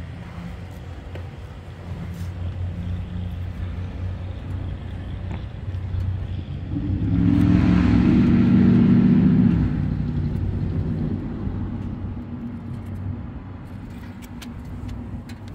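A car's engine hum, low and steady, swells much louder for about two and a half seconds starting around seven seconds in, then fades gradually.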